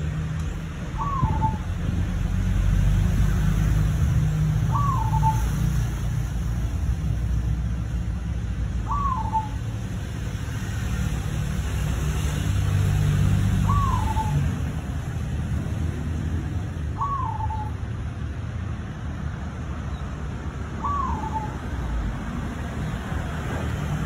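Perkutut (zebra dove) cooing: six short rising-then-falling coos, about one every four seconds, over a steady low rumble.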